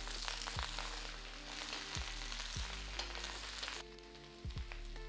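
Sliced celtuce and celery sizzling in hot oil as they are stir-fried in a wok. The sizzle drops off sharply a little under four seconds in.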